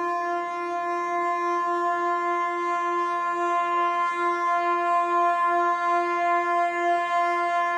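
Ship's horn holding one long, steady note, played as part of a composition for ship horns.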